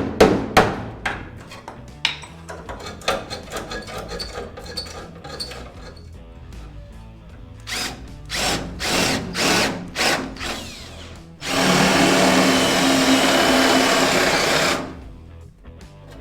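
Power tools at work on a car body's rusted steel: a run of sharp knocks and rattling tool noise, then a power drill running steadily for about three seconds after the halfway mark, as the panel is cut away.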